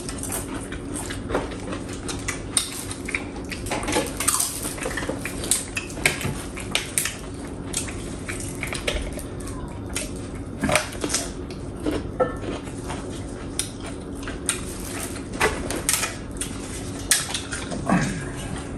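Eating a plate of dal, rice and vegetables: a utensil clinks and scrapes against the plate again and again, with chewing. A steady low hum runs underneath.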